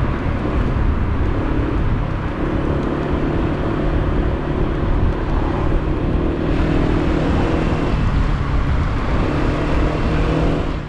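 Honda PCX 125 scooter's single-cylinder engine running at a steady cruise, heard under heavy wind rumble on the bike-mounted camera's microphone. A little more hiss comes in from about six seconds in.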